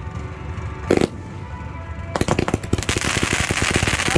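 Fireworks going off: a single bang about a second in, then from about two seconds a rapid string of pops that turns into dense crackling.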